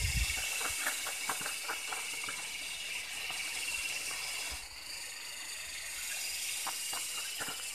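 Steady high-pitched insect drone, with scattered faint clicks.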